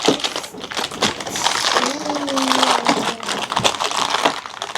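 Homemade slime being squished, kneaded and stretched by hand, a dense wet crackling and popping of many small clicks as air pockets burst.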